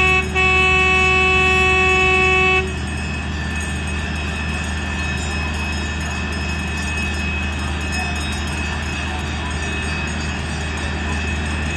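Miniature train's horn giving a short toot and then a long toot of about two seconds, followed by the steady drone of the train running along.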